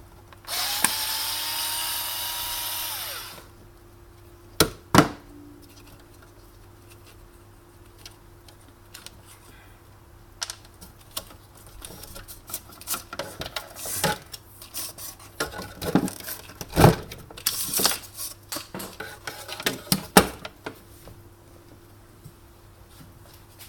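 An electric drill-driver runs for about three seconds, its whine rising as it spins up and then holding steady before it stops. After it come scattered clicks and knocks of the machine's parts being handled.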